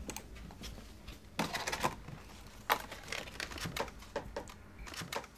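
Scattered light taps and paper rustles from a newspaper being handled on a shop counter, with denser bunches about a second and a half in and again near the three-second mark.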